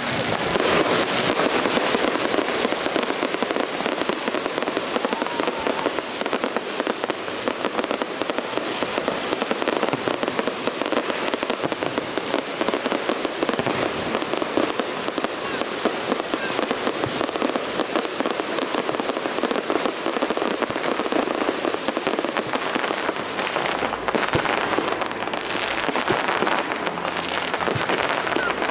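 Fireworks display going off without pause: a dense, steady crackling of many small pops and bangs.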